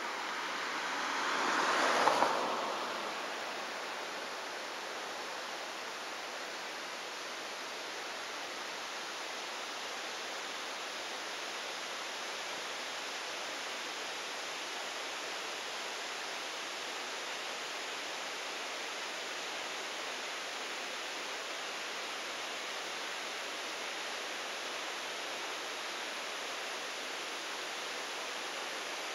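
Steady outdoor noise, an even rushing hiss with no distinct events. A louder whoosh swells up and peaks about two seconds in, then dies back.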